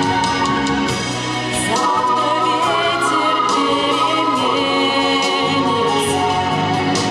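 Music: an orchestral song passage with a singing voice holding long notes.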